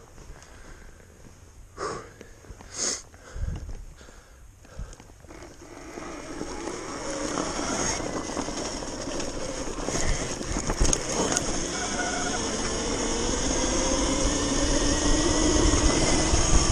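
Sur-Ron electric dirt bike riding on a snowy trail. It is quiet at first, with a few short knocks. From about six seconds the motor whine and the wind and tyre noise build steadily as the bike speeds up.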